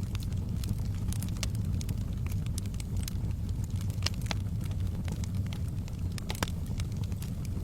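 Wood fire in a fireplace crackling, with frequent sharp pops over a steady low rumble of the flames; two louder pops come past the middle.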